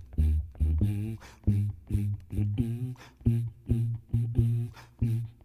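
Upbeat music intro: plucked guitar and bass notes in a steady, bouncy rhythm.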